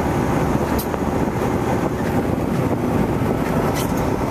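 Steady engine and road noise heard from inside the cab of a Mack CXU613 semi tractor running at highway speed with an empty lowboy trailer.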